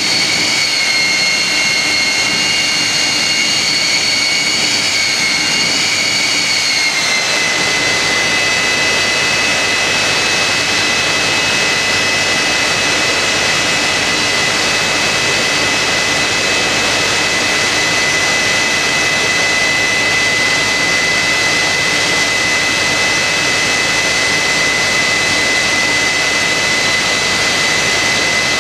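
Jet engine of a jet-powered Kenworth drag truck running in place: a loud, steady rush with a high whine. The whine dips slightly in pitch about seven seconds in and then holds steady.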